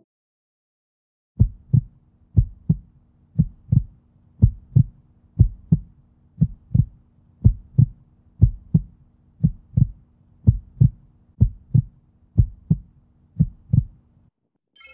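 Heartbeat sound effect: paired low thumps, lub-dub, about one beat a second over a faint low hum. It starts about a second and a half in and stops just before the end.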